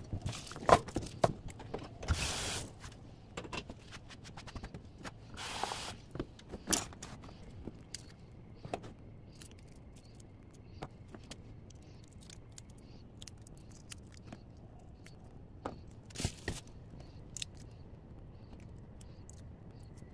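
Garlic cloves clicking and knocking against a stainless steel pot, with two short hissing rushes in the first six seconds. After that come faint, scattered crackles as the papery skins are peeled off the soaked cloves by hand.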